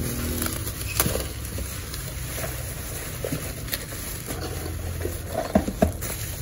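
Plastic bubble wrap crinkling and rustling as it is pulled off small boxes, with a few sharp crackles and clicks, over a steady low hum.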